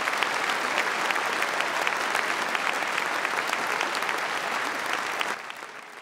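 Audience applauding: dense, steady clapping that drops off about five seconds in and fades away.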